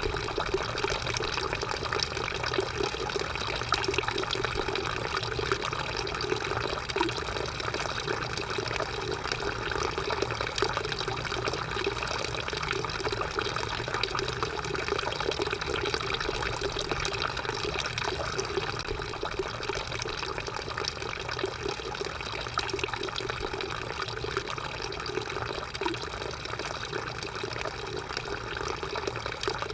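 Drinking fountain running, a steady stream of water flowing and splashing without a break.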